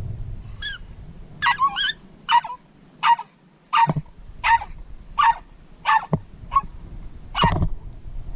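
Jack Russell terrier yapping: a run of about eleven short, high barks, roughly one every two-thirds of a second.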